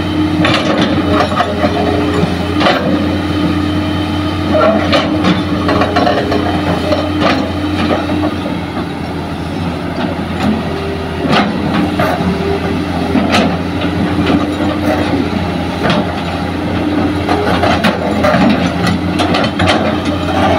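Hitachi hydraulic excavator's diesel engine running steadily under digging load, with scattered knocks and clatter as the bucket scrapes into the soil bank and loosens clods and stones.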